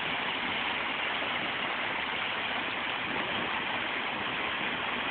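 Steady rush of river water pouring over and around rocks.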